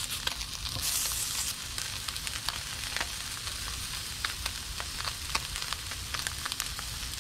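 Sesame-oiled pieces of fish searing in a hot stainless steel skillet: a steady sizzle with scattered pops and crackles, swelling briefly about a second in, over a low hum.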